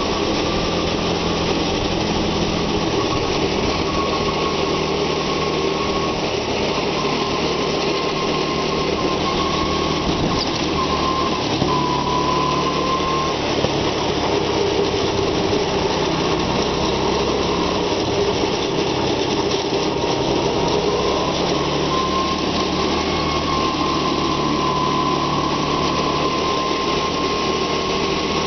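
Go-kart's small engine running steadily at speed while driving, its note rising and falling a little.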